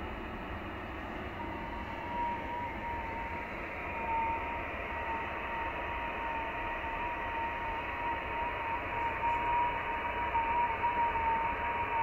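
Shortwave receiver hiss from an Icom IC-7600 tuned to the 15 m band for FT8, cut off sharply at the top by the radio's receive filter. About a second and a half in, a thin FT8 digital tone comes in over the hiss and holds, wavering very slightly in pitch.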